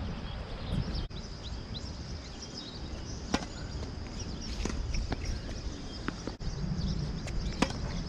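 Tennis ball being hit back and forth in a rally on a hard court: a string of sharp pops from racket strings and ball bounces, a second or so apart, the loudest about three seconds in and again near the end.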